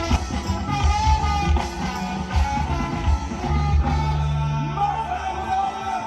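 Pop-rock music with a steady drum beat and bass; the drums and bass drop out about five seconds in.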